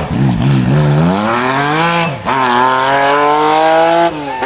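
Lancia Stratos rally car accelerating hard on full throttle. The engine revs climb, dip briefly at an upshift about two seconds in, climb again, then fall away sharply as the driver lifts off near the end.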